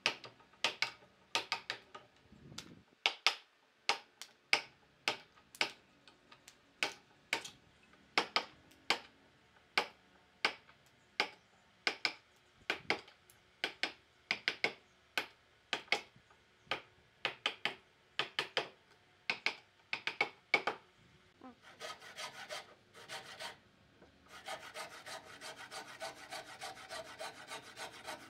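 Wooden mallet striking a chisel as it pares the edge of a wooden slab: sharp knocks at about one and a half a second. About three-quarters through, the knocking stops and a hand tool scrapes steadily back and forth along the wood.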